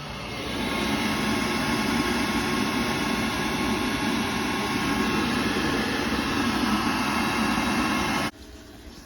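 Worcester 28i Junior combi boiler firing, with a steady rush of its fan and burner that swells slightly about half a second in and cuts off abruptly near the end.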